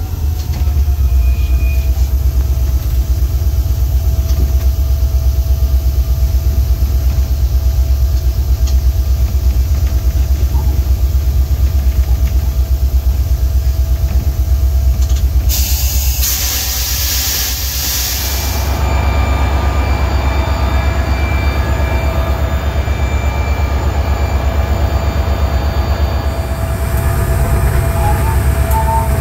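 EMD GT36HCW diesel-electric locomotive heard from its cab while running along the line: a loud, steady low rumble with a fast pulsing beat and a steady whine above it. About 16 seconds in, a burst of hiss rises over it for about three seconds.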